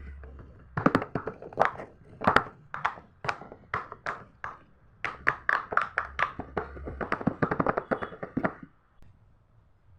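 Silicone pop-it fidget toy bubbles being pressed through one after another: a long run of sharp little pops, a few a second, coming faster near the end and stopping about nine seconds in.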